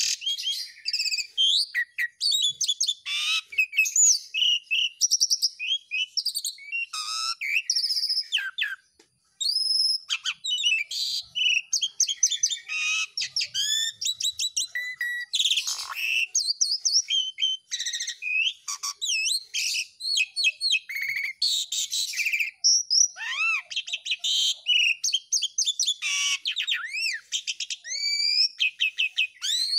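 Javan pied starling (jalak suren) singing a long, continuous song of varied whistles, chatter and rasping notes, with a brief pause about nine seconds in.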